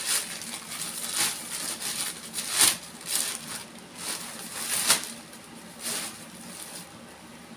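Plastic bags rustling and crinkling in irregular bursts as they are handled and pulled out of a cardboard box, with the loudest crinkles about two and a half and five seconds in.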